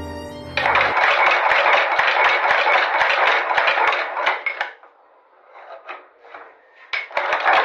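Cobbler's machine running with a rapid metallic clatter, stopping about five seconds in and starting again near the end.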